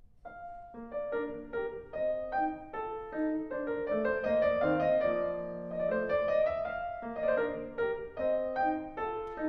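Instrumental background music played on piano, a steady run of notes and chords.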